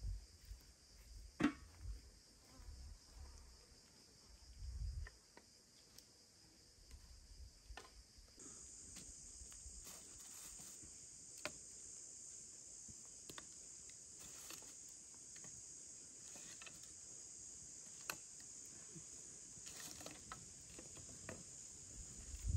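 Steady high-pitched chorus of insects, growing louder about eight seconds in, with scattered light clicks and knocks of sticks being handled at a campfire.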